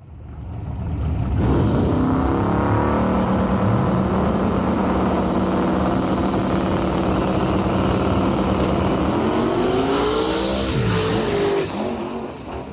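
Two drag racing cars' engines held at a steady high rev on the starting line, then launching with a rising engine pitch about nine seconds in; the sound dips and fades as the cars pull away down the track.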